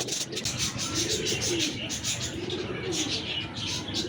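Pigeon cooing: two low, drawn-out coos that rise and fall, one about a second in and one near three seconds, over a scratchy rustling hiss.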